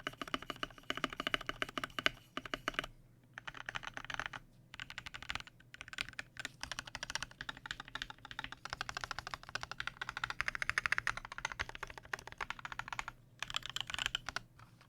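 Fast typing on a custom mechanical keyboard with lubed and filmed Durock L4 Clear Purple linear switches on 62 g springs, in an acrylic Tofu case with an aluminium plate and HyperX Pudding keycaps. It is a dense run of keystrokes with a few brief pauses.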